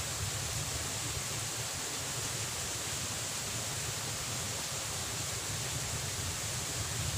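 Steady outdoor background noise: an even hiss with a low, unsteady rumble beneath it and a constant high hiss above, with no distinct events.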